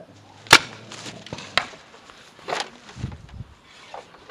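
Paintball marker shots: three sharp pops roughly a second apart, the first and loudest about half a second in.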